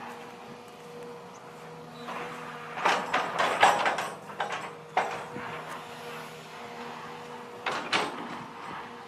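Long-reach excavator working: its engine runs with a steady hum. Bursts of clattering knocks come from about two to five seconds in, and a shorter burst a little before the end.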